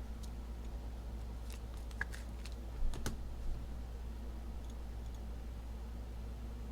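Scattered light clicks of typing on a computer keyboard, clustered from about a second and a half to three and a half seconds in, over a steady low electrical hum.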